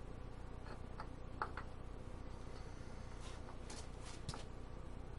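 Faint, scattered metallic clicks and taps of engine parts being handled while a camshaft timing gear is worked into place, over a steady low hum.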